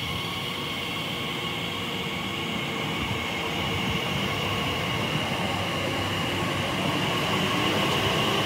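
Class 345 electric multiple unit running, its traction motors giving a steady whine over wheel-on-rail rumble, gradually growing louder.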